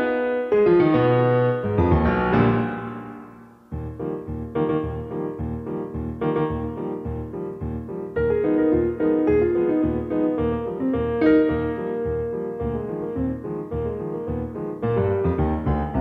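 Background piano music with a steady pulsing bass line; it fades away about three seconds in, then a new passage starts abruptly and carries on.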